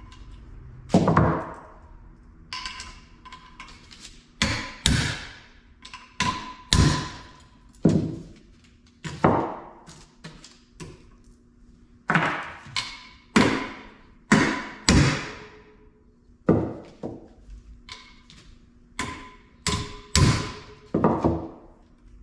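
Hammer striking a spark plug socket held on the valve spring retainers of a Ford 302 small-block cylinder head, knocking the valve keepers loose so the springs come off. The sharp metal strikes come at irregular intervals, a couple of dozen in all, each with a short ring.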